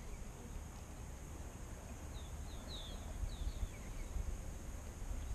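Wind rumbling on the microphone, with a bird giving a short run of quick, falling chirps in the middle.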